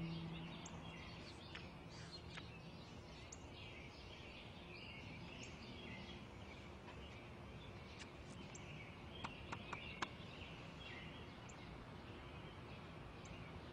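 Quiet outdoor garden ambience with small birds chirping and twittering throughout. A low held music tone fades out in the first couple of seconds, and a few short soft clicks come about eight to ten seconds in.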